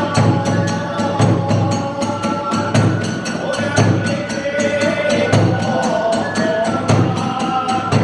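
Kagura hayashi ensemble playing for the dance: a large ōdō drum struck with sticks in regular low beats, tebyōshi hand cymbals clashing in a fast, even rhythm about four or five times a second, and a fue bamboo flute carrying a wavering melody above them.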